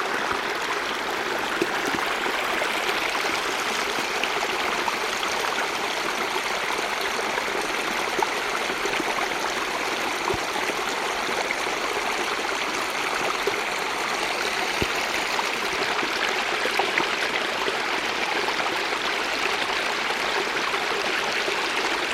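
Winter stream running steadily, an even rush of flowing water with small splashes.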